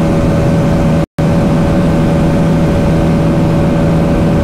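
A 200 cc single-cylinder motorcycle engine running flat out, held steady at high revs in top gear near top speed. The sound cuts out completely for a moment about a second in.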